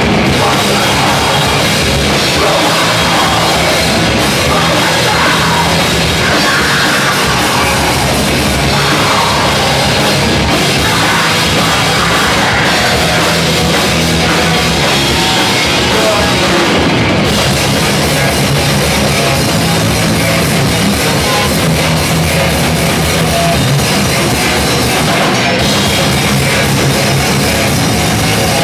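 Loud rock band playing heavy rock music, with a drum kit, at a steady high level throughout.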